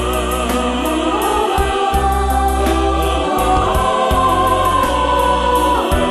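Music: a slow song's passage between its lyric lines, with held sung notes over a sustained low bass and a steady light beat.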